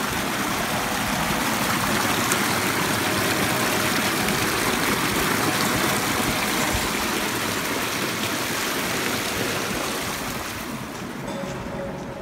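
Mountain stream rushing over rocks, a steady loud rush of water that fades near the end.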